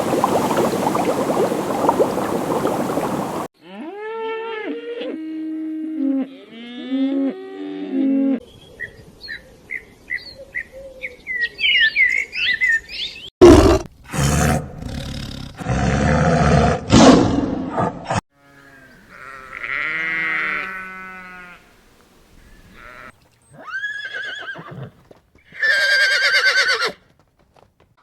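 A run of different farm animal calls spliced one after another, each lasting a few seconds: a noisy stretch at the start, then pitched calls, high chirps, loud rough calls and more cries near the end.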